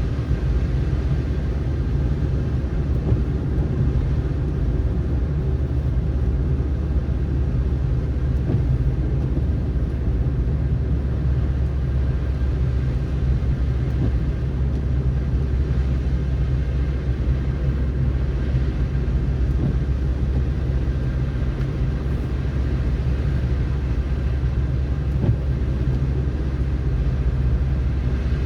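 Car driving on a snowy road: a steady low rumble of tyre and road noise with an even engine hum.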